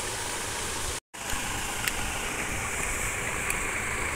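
Steady rushing background noise, broken by a brief total dropout about a second in, with a few faint clicks afterwards.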